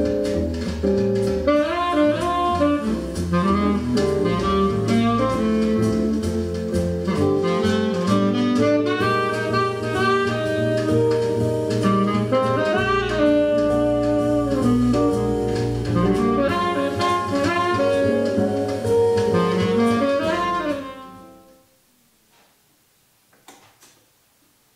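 Jazz recording with saxophone and double bass, played back through a JBL SA600 solid-state amplifier. About 21 seconds in the music fades out quickly to near silence, broken by a few faint clicks.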